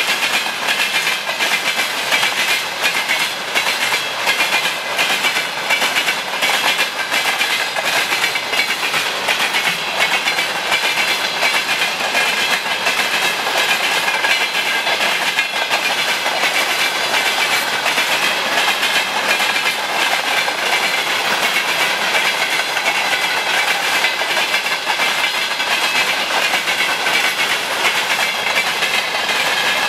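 Railway wagons of a train hauled by a VL10K electric locomotive rolling past on steel wheels: a steady, rapid clickety-clack of wheels over the rails with a hissing rush.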